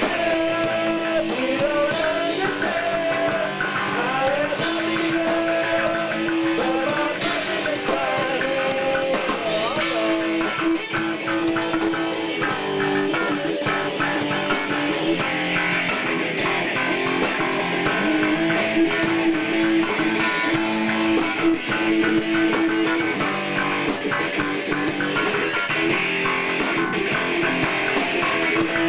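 Rock band playing: a drum kit with cymbal crashes under an electric bass guitar, with held pitched notes throughout.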